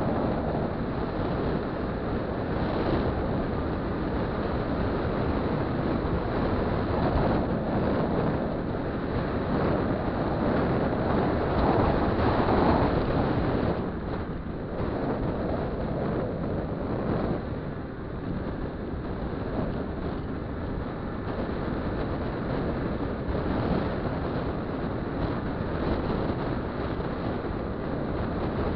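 Wind rushing over an action-camera microphone mixed with the running of a 50cc two-stroke scooter at cruising speed, dipping a little about halfway through.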